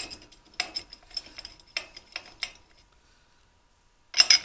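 Small steel bolts clinking and rattling in a hand and tapping against the metal end cover of a kerosene heater's air pump as it is being bolted back together. There is a run of short metallic clinks for about two and a half seconds, a pause, then another clatter near the end.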